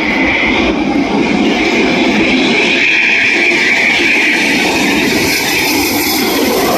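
Jet engines of an RAF Eurofighter Typhoon (twin EJ200 turbofans) on landing approach with gear down: a steady jet roar with a high whine held over it.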